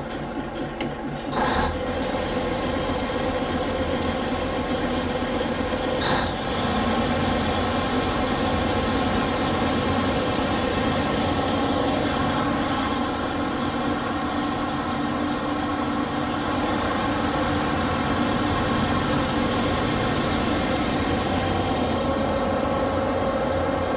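An Industrial Brownhoist 250-ton railroad wrecking crane running steadily as its boom is lowered, a continuous machinery drone with steady tones. Two short knocks come about a second and a half and six seconds in.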